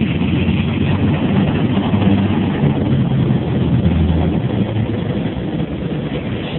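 Cessna 172P's four-cylinder Lycoming engine and propeller droning steadily, heard from inside the cabin with air rushing past, easing off slightly in the second half.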